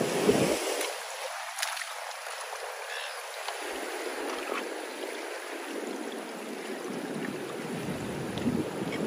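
Seawater washing and trickling over a rock platform, a steady hiss of moving water. Wind buffets the microphone in the first second, then dies away.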